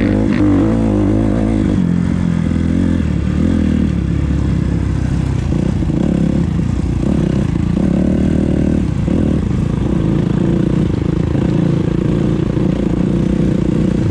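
Dirt bike engine running steadily on a woods trail ride, its pitch rising and falling a little with the throttle near the start and again midway.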